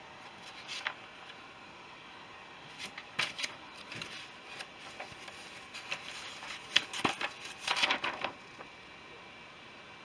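Paper rustling and pages turning as an instruction booklet is leafed through, in short bursts, busiest a few seconds in and again around the middle, over a faint steady background hiss.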